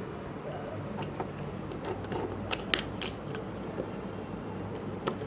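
Small plastic clicks and crackles from handling a compact camera and its charging connection, the sharpest click a little under three seconds in and another near the end, over a steady low hum.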